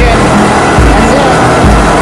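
Music with a steady, heavy bass beat, a little more than one beat a second.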